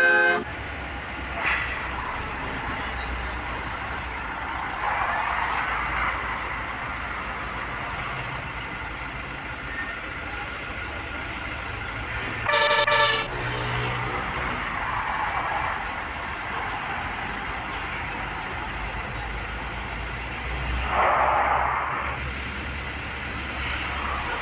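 Steady rumble of road traffic with vehicles passing, broken about halfway through by one short, loud blast of a bus's multi-tone telolet horn.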